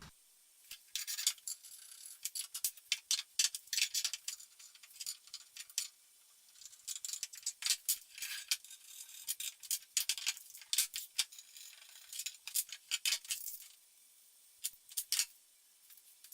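Light metallic clicks, scrapes and rattles in irregular runs as the steel parts of a homemade F clamp are fitted together, falling quiet near the end apart from one last short run.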